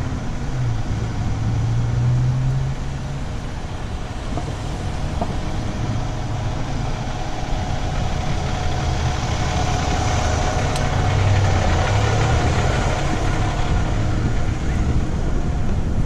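Motor vehicle engine running at low speed in traffic, a steady low hum under rushing wind and road noise on a bicycle helmet camera.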